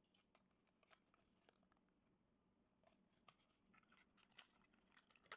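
Faint crinkling and clicking of a clear plastic blister pack on a Hot Wheels card being handled and pressed to push the die-cast car out. It is sparse at first, busier in the second half, with a sharper snap near the end.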